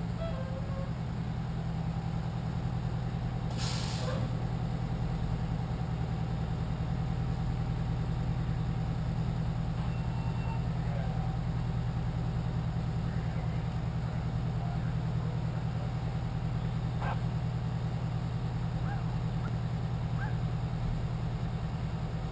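Fire truck's diesel engine idling steadily, with a short hiss of air about three and a half seconds in.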